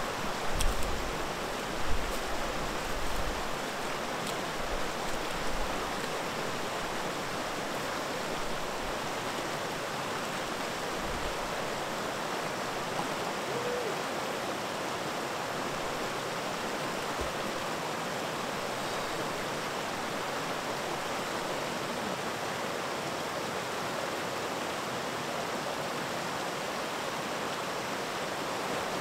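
Creek water rushing steadily, with a few low rumbles in the first several seconds.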